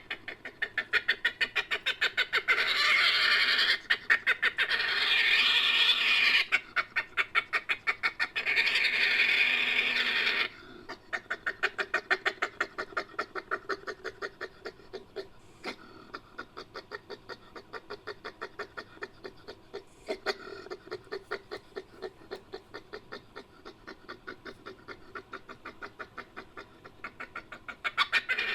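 Designed creature calls for an extinct civet, made from Asian civet and badger recordings: a rapid, pulsing series of clucking calls, loud for about the first ten seconds, then softer calls repeating at about two or three a second.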